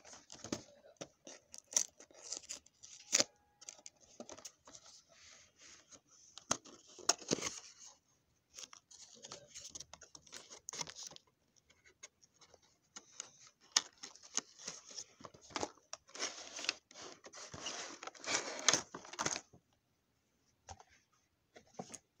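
Cardboard toy box and clear plastic packaging tray being handled and opened by hand: irregular rustling and scraping with sharp clicks, thickest about three quarters of the way through.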